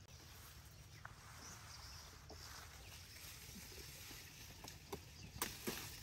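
Machete cutting and trimming a sugarcane stalk: faint rustling of the cane leaves with a few light knocks, and two sharper cracks near the end.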